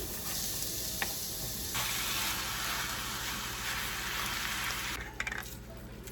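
Food sizzling in a hot frying pan, a steady hiss with a single click about a second in. The sizzle grows fuller just under two seconds in and drops away about five seconds in.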